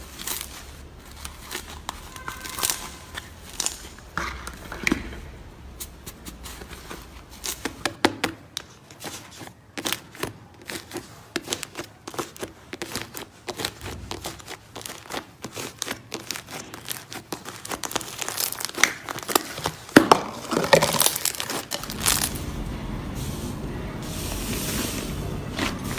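Slime being squeezed, poked and stretched by hand, giving dense runs of sticky clicks and crackling pops, busier and louder in the last third.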